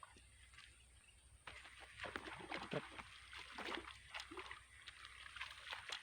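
Irregular splashing and thrashing in water, starting about a second and a half in, from a hooked snakehead fighting at the surface as it is brought in.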